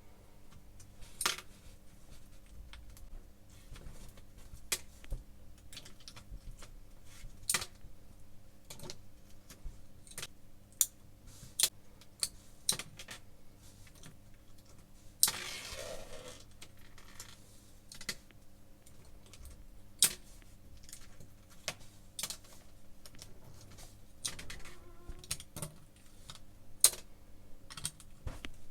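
Transparent slime with small plastic balls in it being handled, giving irregular sharp clicks and taps. Halfway through there is a longer, noisier squish of about a second.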